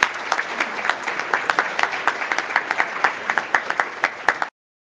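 Audience applauding, many hands clapping together, cut off suddenly near the end.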